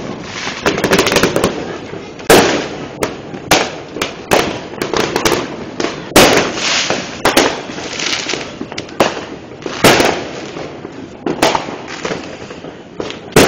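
Many fireworks going off: sharp bangs at irregular intervals, some in quick clusters, over a continuous rumble of more distant bursts.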